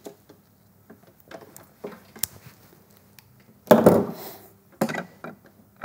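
TPS electrical cable and side cutters being handled: soft rustles and small clicks, with a louder rustle of the cable about four seconds in.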